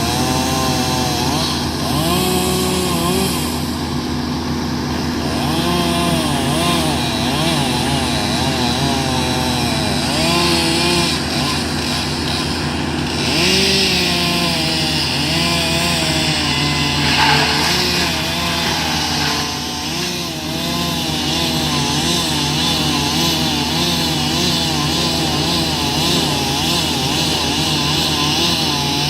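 Chainsaw running and cutting at the base of a dead tree near the ground, its engine speed rising and falling over and over as it works through the trunk.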